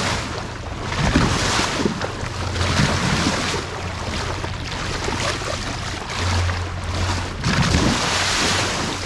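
Water rushing and splashing along the side of a moving boat, with wind buffeting the microphone in gusts. A low steady hum underneath grows louder for about a second, around six seconds in.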